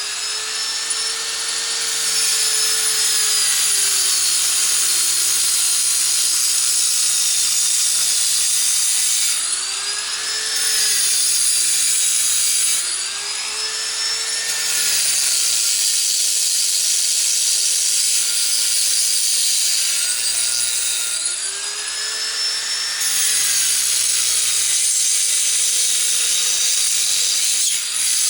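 Sears disc grinder cutting through rock: a loud, continuous grinding hiss over the motor's whine. The whine's pitch sags and recovers several times, around the start and again at about 10, 13 and 21 seconds in, as the disc bogs under the load of the rock.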